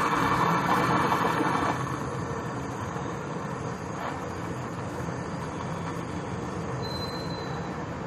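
Handheld gas brazing torch flame burning steadily with a rushing hiss while brazing a copper capillary tube to the filter drier. The flame noise turns quieter about two seconds in.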